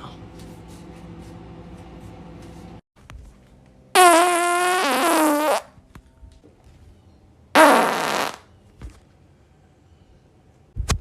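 A person farting twice. The first is a long, loud fart with a wavering tone, lasting about a second and a half, about four seconds in. The second is a shorter one with a falling tone about three seconds later.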